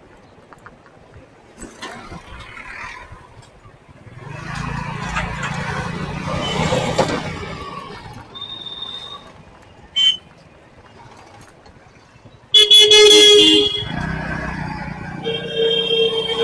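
Road traffic: a motor vehicle's engine swells past in the first half, then other vehicles' horns honk, first a short, loud blast and then a longer steady honk near the end.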